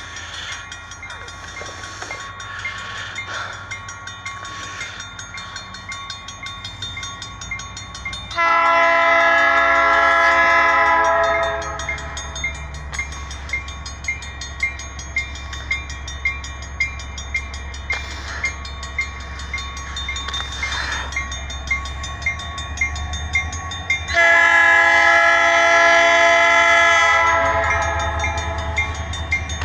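Canadian National freight locomotive's air horn sounding two long chords, the first about eight seconds in and the second about twenty-four seconds in, for the grade crossing as the train approaches. A low locomotive rumble builds after the first blast, and a grade-crossing bell rings steadily throughout.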